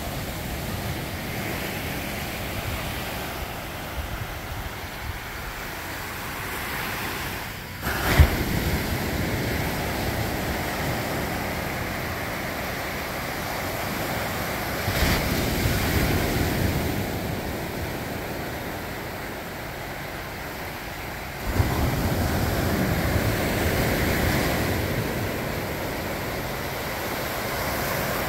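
Ocean surf breaking and washing up a sandy beach, with wind rushing over the microphone. The sound jumps suddenly louder about eight seconds in and again near the two-thirds mark.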